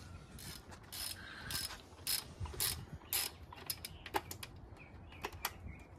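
Hand socket ratchet clicking in short back-and-forth strokes, about two a second, with a few quicker, sharper clicks in the second half, as bolts are worked on a Kawasaki KLR650 motorcycle.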